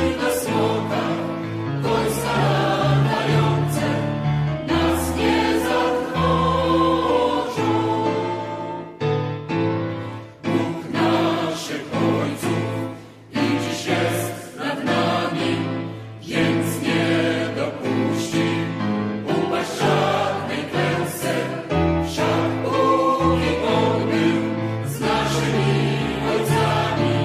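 Music: a choir singing a song with accompaniment.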